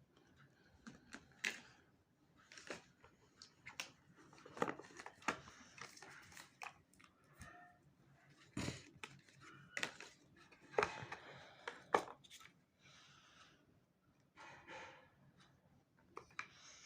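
Hands handling a smartphone and its packaging up close: irregular clicks and taps mixed with short rustles.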